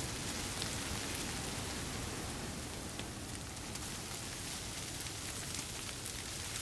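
Wet snow falling and pattering on the tent's canvas: a steady hiss with many scattered light ticks.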